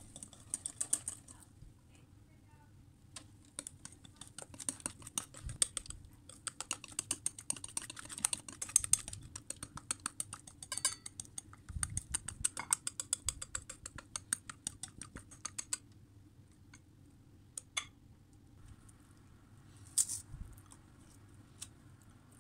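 Baking paper crinkling and crackling in a baking pan: dense runs of fast small crackles that stop about two-thirds of the way through, followed by a few single clicks.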